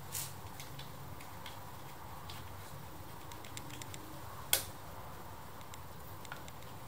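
Light clicks and taps of a battery jumper cable being handled and fitted onto 12-volt battery terminals, with one sharp click about four and a half seconds in, over a low steady hum.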